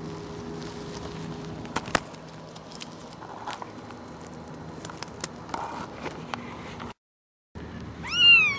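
Faint scattered clicks over a low steady hum, a brief dropout to silence, then near the end a 10-day-old kitten gives one high mew that rises and falls in pitch.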